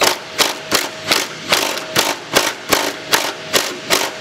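An impact wrench fired in short, evenly spaced bursts, about eleven of them at two to three a second, on a transmission fastener that is not coming loose.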